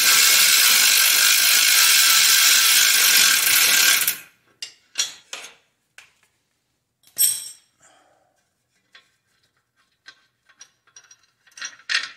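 Milwaukee M12 cordless ratchet running for about four seconds, spinning out an already-loosened bolt at the catalytic converter's exhaust flange, then stopping sharply. Scattered light metallic clicks and taps follow.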